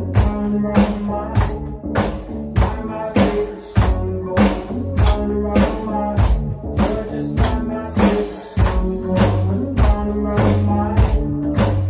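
Electronic drum kit played to a backing song: a steady beat of drum and cymbal hits over a music track with bass and melody.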